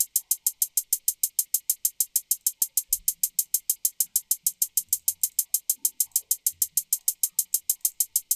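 Trap hi-hat sample played by a Redrum drum machine in Propellerhead Reason, ticking in an even run of about six or seven hits a second: a slower roll programmed at 1/16-triplet resolution.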